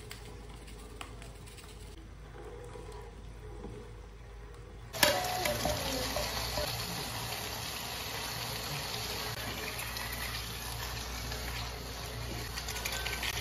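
Beef and vegetables in a frying pan simmering and sizzling as the cooking liquid reduces. The bubbling is faint at first, then a much louder steady sizzle with crackles starts suddenly about five seconds in.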